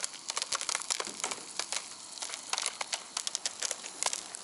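Old popcorn kernels popping inside a foil-domed stovetop popcorn pan as it is shaken: a quick, irregular run of sharp pops mixed with crinkling of the foil.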